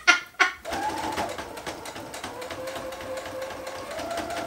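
Brother computerized home sewing machine starting up about half a second in and stitching, its needle ticking rapidly. The motor's pitch drops partway through and rises again near the end as the sewing speed changes.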